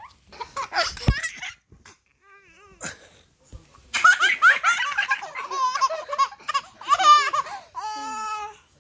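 Baby laughing while being tickled: a few short giggles, then a long run of belly laughs from about four seconds in, ending in one drawn-out squeal.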